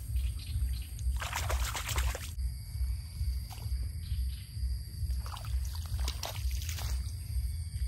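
Water splashing and sloshing in two bouts, about a second in and again from about five to seven seconds in, over a steady low rumble.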